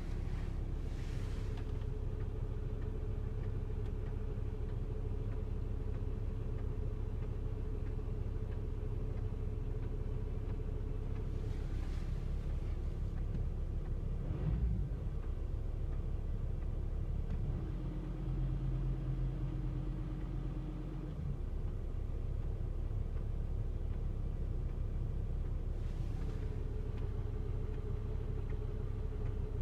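Ticking from the left footwell of a 2005 VW Touareg 2.5 TDI over its engine idling. The ticking comes from the automatic gearbox's oil heater as it warms the transmission oil, which is normal for these vehicles. There is a brief knock about halfway through, and the hum changes pitch for a few seconds soon after.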